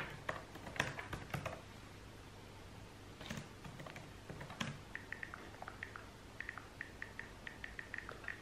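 Typing on a computer keyboard: scattered keystrokes at first, then from about halfway a run of quick, light clicks.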